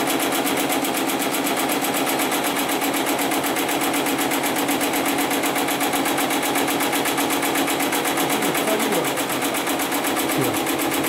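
Hightex 75008 heavy-duty computer-controlled pattern sewing machine stitching through stacked layers of synthetic webbing, running steadily with rapid, even needle strokes.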